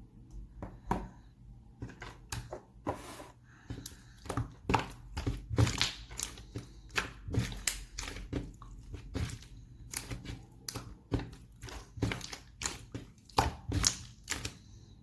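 Homemade slime being squeezed, stretched and poked by hand: a run of irregular sticky clicks, snaps and pops.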